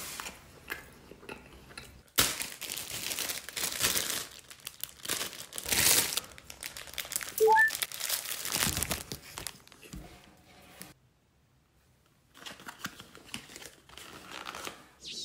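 Close-miked crunching and chewing of breaded fried food, from about two seconds in until about nine seconds, with a short electronic chime at about seven and a half seconds. After a brief pause, a cardboard food box rustles and crinkles as it is handled.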